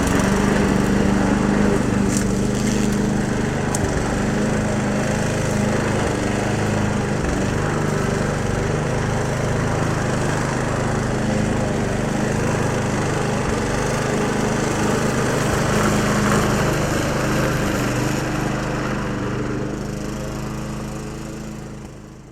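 Lawnmower engine running steadily just after starting, fading out near the end.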